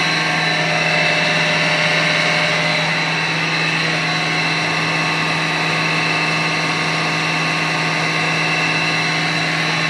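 Steady machinery hum and whine, a loud even drone with several fixed tones in it and no change in speed or pitch.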